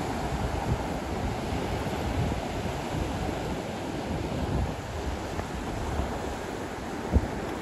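Steady ocean surf breaking on the beach, with wind buffeting the microphone in low rumbling gusts. There is a single short knock near the end.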